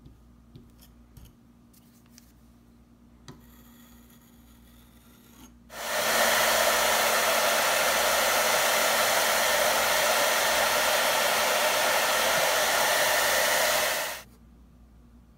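Hair dryer blowing a steady stream of air onto a freshly applied water-putty patch to dry and harden it; it switches on about six seconds in and cuts off about eight seconds later. A few faint clicks come before it.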